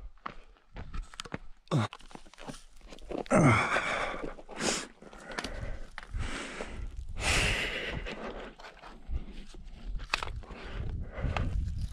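Shoes and gear scuffing and crunching on rock, with two short low sounds about two and three and a half seconds in that fall in pitch.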